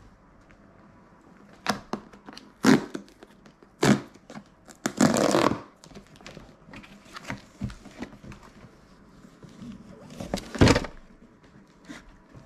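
Cardboard box being opened on a table: its seal picked at and the box handled, giving scattered knocks and taps, with a longer scraping rustle about five seconds in.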